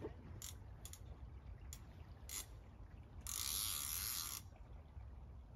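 Centrepin reel's ratchet giving a few single clicks, then buzzing for about a second as line is pulled off the spinning drum by a hooked chub.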